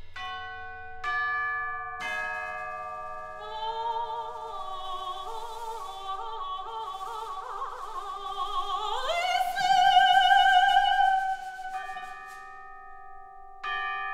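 Soprano voice singing with wide vibrato over ringing struck metal percussion. Three bell-like strokes open the passage and ring on, the voice enters and slides up to a loud high held note in the middle, and two more strokes sound near the end.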